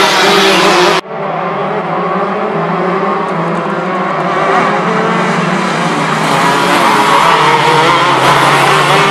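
Engines of a pack of racing karts running hard. The engine noise drops sharply about a second in, then builds steadily louder as the pack approaches.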